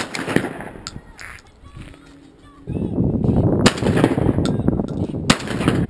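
20-gauge shotgun firing at doves: a sharp report at the start, then two more about a second and a half apart near the end.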